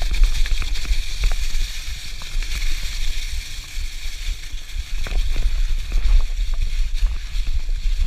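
Mountain bike riding over a trail covered in dry fallen leaves: tyres rustling through the leaves and the bike clicking and rattling over bumps, with wind rumbling on the microphone.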